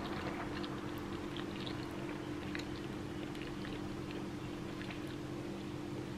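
A person chewing a mouthful of pasta: scattered faint mouth clicks over a steady low hum.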